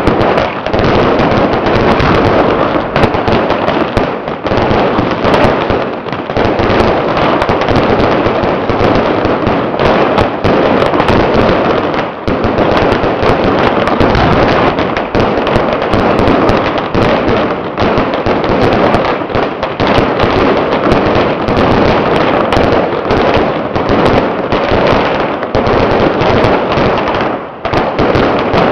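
Strings of firecrackers going off in a dense, continuous crackle of rapid bangs, loud throughout, with a short lull near the end.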